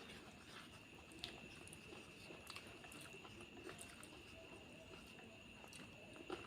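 Faint chewing of curry and rice, with soft wet mouth sounds and scattered clicks; the sharpest clicks come about a second in, at two and a half seconds, and near the end. A faint steady high-pitched whine sits underneath.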